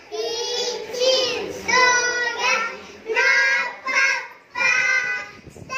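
Several young children singing a song together in short phrases, with brief breaks between them.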